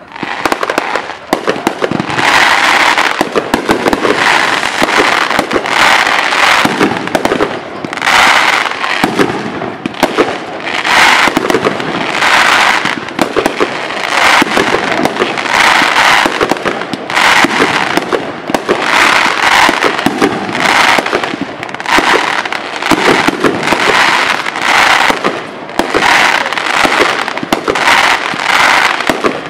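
Aerial fireworks bursting in a rapid, continuous barrage of crackling shells that starts abruptly and swells about once a second.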